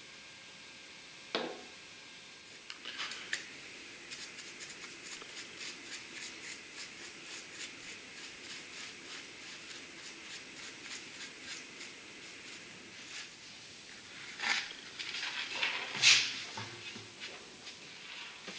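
A brush dabbing and stroking on wood gives a run of light, even scratchy ticks, about four a second. A few sharp knocks and clatter from tools and objects being handled come near the end.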